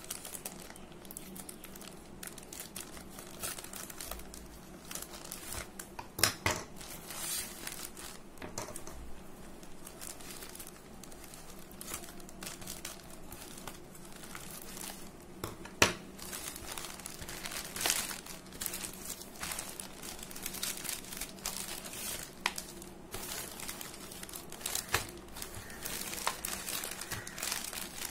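Plastic courier mailer crinkling and rustling as it is cut open with scissors and pulled apart, with a few sharp snips and clicks along the way.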